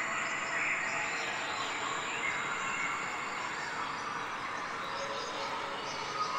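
Steady outdoor ambience: an even hiss of background noise with faint bird chirps and insect calls.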